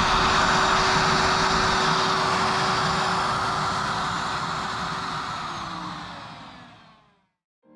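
Electric router running on a rail-mounted flattening sled over a walnut and epoxy slab. It then winds down, its pitch falling, and dies away about seven seconds in.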